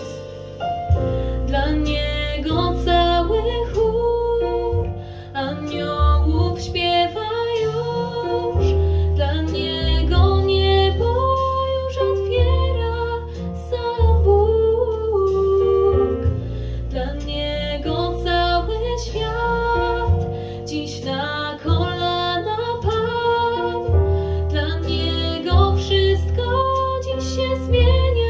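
A girl singing a melody over an instrumental backing with piano and a deep, sustained bass.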